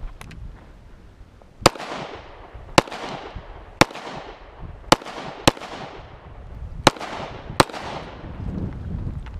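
Seven gunshots from a firearm at uneven intervals of about a second, each sharp crack followed by an echo that trails off.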